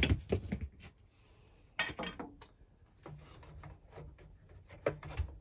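Scattered clicks, knocks and rubbing of hands and tools handling metal and plastic parts of a lawnmower, with a sharper knock about two seconds in and another near the end.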